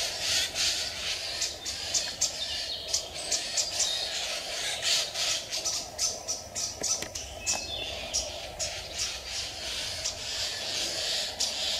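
Wild birds chirping, many short high calls in quick succession, over a steady background hiss.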